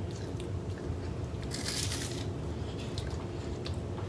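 Someone biting into and chewing a chocolate-covered Prince Polo wafer bar, with a short crisp crunch about a second and a half in.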